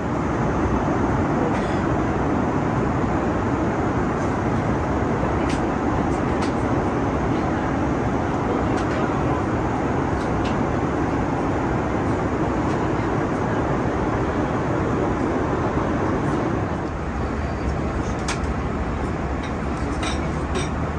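Steady cabin noise of an Airbus A340 airliner in flight: a broad airflow-and-engine rush with a low rumble under it, shifting slightly in tone about three-quarters of the way through, with a few faint clicks.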